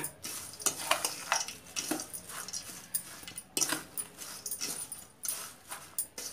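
A metal spoon stirring a dry bhel mix of flattened-rice chivda and sev in a stainless steel bowl: irregular rustling scrapes, about two to three strokes a second.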